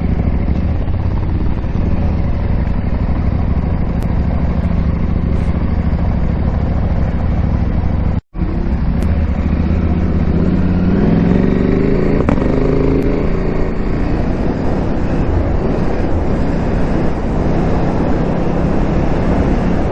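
KTM 890 Adventure R's parallel-twin engine running while riding, its revs rising and falling about ten to thirteen seconds in. All sound cuts out for a split second about eight seconds in.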